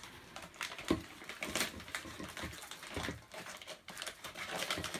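Gift wrapping paper being torn and crinkled by hand as a present is unwrapped: an irregular run of rustles and rips, a few of them sharper.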